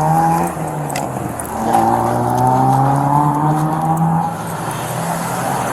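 Road traffic: vehicle engines rising steadily in pitch as they accelerate past, one fading out just after the start and a louder one from about a second and a half in that fades out about four seconds in, over steady road noise.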